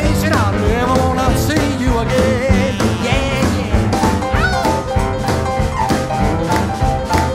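Blues band playing an instrumental break on electric guitar, drums, upright bass and keyboard, with bent, wavering lead notes over the beat.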